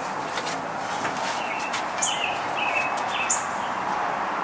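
Light clicks and knocks of a half-round kiln shelf being handled and set in place inside an electric kiln, over a steady hiss. Several short high chirps come about two to three seconds in.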